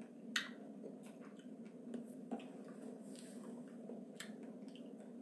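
A person chewing food with the mouth closed: faint mouth sounds and a few small clicks, the clearest about half a second in, over a steady low background hum.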